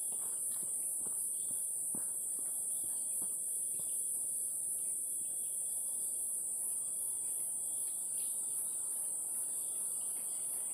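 Steady high-pitched buzzing of insects in a pine forest, with soft footsteps on a dirt trail in the first few seconds.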